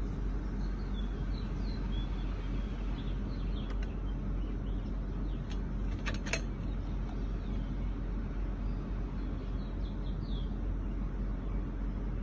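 Audi Q7 engine idling with a steady low rumble. Faint bird chirps come near the start and again near the end, and a couple of sharp clicks about six seconds in.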